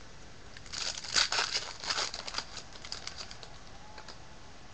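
Foil wrapper of a Panini Contenders trading card pack crinkling and tearing as it is opened. A quick run of crackles comes about a second in, then a few fainter ticks.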